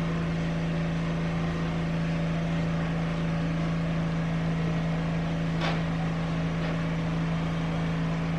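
Steady low hum, even in level throughout, with one faint click about five and a half seconds in.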